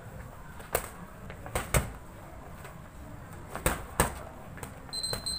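Boxing gloves striking gloves and bodies in sparring: five sharp smacks, a single one under a second in, a quick pair about a second and a half in, and another pair a little after the midpoint.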